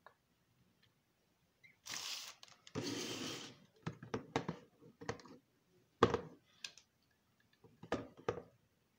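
A spinning fishing reel being handled against its cardboard box: two short rustles, then a run of irregular clicks and knocks, the sharpest about six seconds in.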